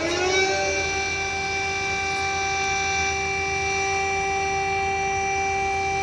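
Air-raid warning siren wailing: its pitch dips, climbs sharply about half a second in, then holds one steady tone with a rich set of overtones.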